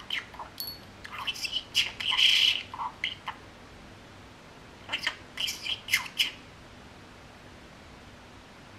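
Budgerigar chattering in short, sharp calls in two bouts, the first with a harsh squawk about two seconds in, then falling quiet for the last couple of seconds.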